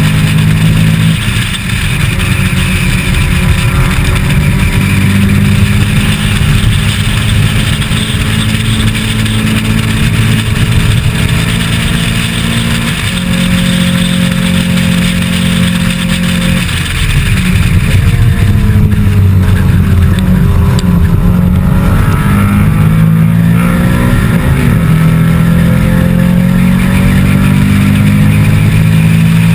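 Onboard sound of a historic saloon race car at racing speed: its engine running hard under load, with wind noise over the microphone. The engine note falls and rises again a few times in the last third.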